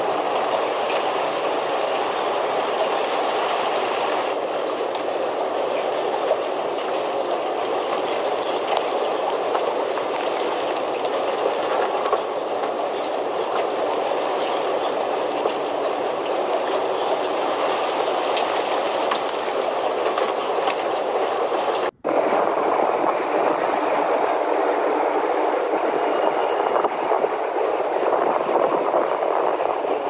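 Steady rain falling, an even rushing hiss with faint scattered drop taps; it cuts out for an instant about 22 seconds in and then carries on.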